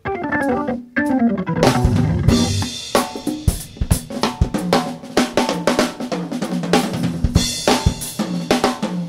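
Live jazz with a Hammond organ playing a falling run, then a drum kit coming in about a second and a half in with snare hits, bass drum and cymbal crashes over steady bass notes.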